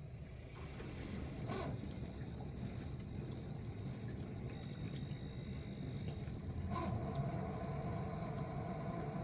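Water running and splashing inside a Miele G6625 dishwasher as it fills. About seven seconds in there is a click, and the circulation pump motor starts with a steady droning grind. The owner suspects either something caught in the pump or failing motor bearings.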